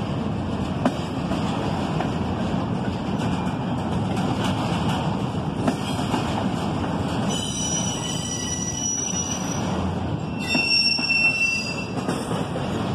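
Intermodal freight train cars rolling past at speed, a steady rumble and rattle of wheels on rail. A high-pitched wheel squeal rises over it twice, starting about seven seconds in and again about ten and a half seconds in.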